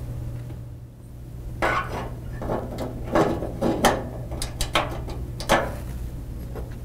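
Metal gas-cooktop burner bases and caps clinking and clicking as they are set into place by hand: a string of sharp clicks starting about a second and a half in.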